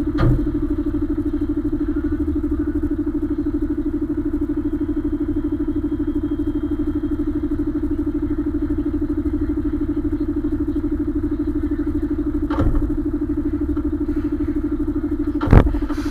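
Container truck's diesel engine idling steadily, heard close to the cab. Three short thumps cut through it: one just after the start, one about three quarters of the way in, and a louder one near the end.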